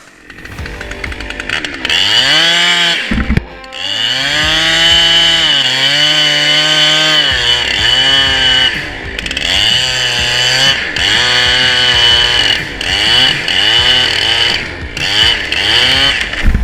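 Chainsaw engine running at full throttle in a cut, its pitch sagging as it bogs under load and rising again, over and over, with a high chain whine throughout. It briefly drops off about three and a half seconds in.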